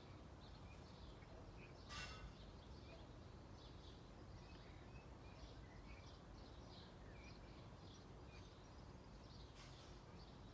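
Faint outdoor garden ambience: small birds chirping and twittering at a distance over a low, steady background noise, with one short sharp sound about two seconds in.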